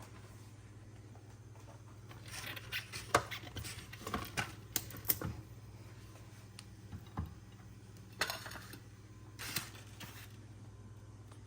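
Irregular light clicks and taps in two clusters, over a steady low hum.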